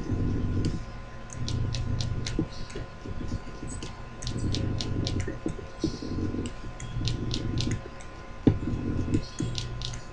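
Small electric motor of a lathe's reversible leadscrew drive, switched on and off by a homemade joystick switch, running in short spurts of about a second, about seven times, with sharp clicks throughout.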